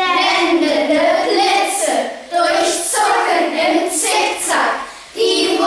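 A class of children chanting a German alliterative poem in unison, in rhythmic phrases with short breaths between them.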